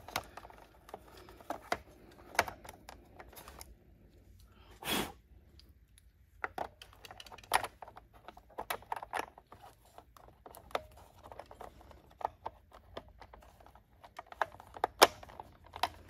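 Small plastic clicks and knocks from the parts of a Roomba 600-series cleaning head as its bristle brush is handled and seated, with one louder knock about five seconds in.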